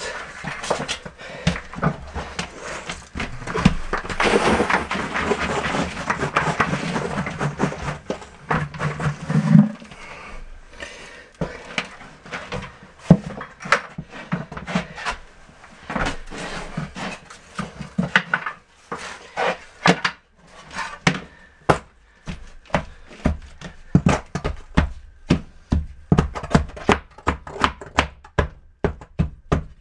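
Sand-and-cement deck mud being dumped from a bucket onto a shower floor, a gritty rustle and scrape for about the first ten seconds. Then a trowel packs and taps the mud into a perimeter along the wall, a long run of short knocks that come faster near the end.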